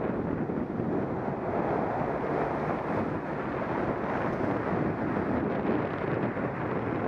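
Steady rumbling wind rush on an action camera's microphone from riding a bicycle, with no distinct events.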